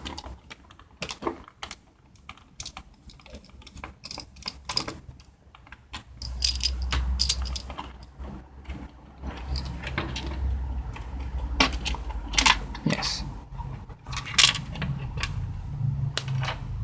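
Irregular metal clicks, clinks and knocks of a PC case being taken apart with a screwdriver, with low handling rumble in the middle.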